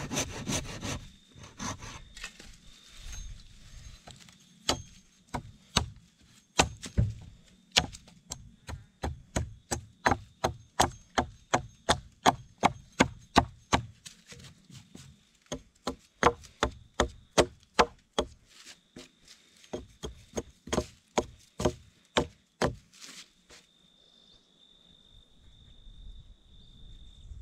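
Hatchet chopping a notch into the end of a thin log, a long run of sharp wooden chops at about two a second, after the last strokes of a hand saw in the first second.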